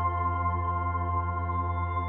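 Ambient background music: a steady low drone under sustained, held synthesizer-like tones.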